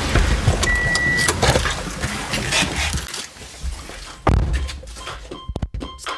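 People climbing out of a parked car: rustling and clunking movement in the cabin, a short single electronic beep about a second in, and a car door thudding shut just past four seconds in.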